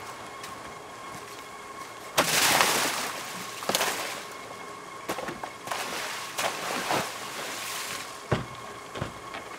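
Freshly harvested milkfish tipped from a basket into a boat's ice-filled hold: a loud rush of fish and crushed ice sliding and slapping about two seconds in, followed by several shorter slides and splashes, and two knocks near the end.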